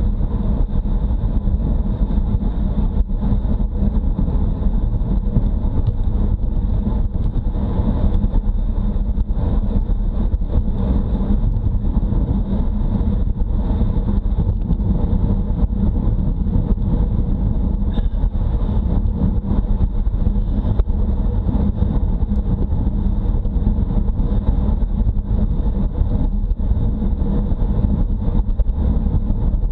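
Steady, low wind rumble buffeting a Garmin Virb action camera's microphone on a road bicycle being ridden at speed.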